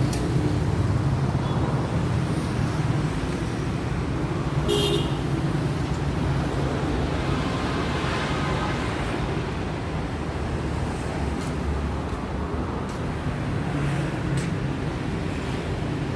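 Industrial woodworking machine running steadily with a continuous motor hum, with a short high-pitched tone about five seconds in and a few light clicks.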